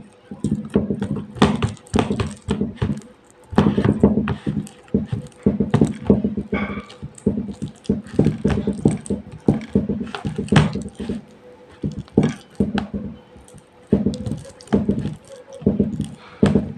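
Steamed, softened dates being mashed by hand in a plastic bowl: a dense run of short, irregular squishes and soft knocks as fingers press the sticky pulp against the bowl.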